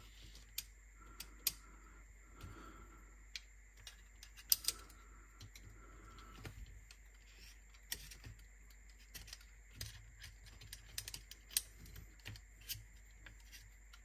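Light, irregular clicks and taps of small parts and tools being handled on a cassette deck's transport mechanism, with a few sharper clicks a little after four seconds in and near the middle.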